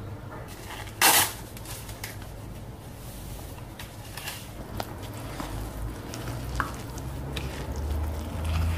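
A cup of wheat flour tipped from a drinking glass into a glass mixing bowl, with a short soft rush about a second in. Small rustles and clicks follow as powder is shaken in from a paper packet, then a silicone spatula stirs the dry flour into wet batter near the end.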